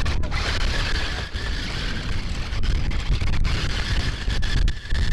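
Battery-electric RC monster truck driving over ice and slush, its motor and gears giving a steady high whine, with wind rumbling on the microphone.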